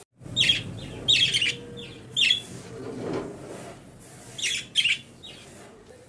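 Budgerigars chirping: short, sharp high-pitched chirps in small clusters, about six in all, with gaps between them.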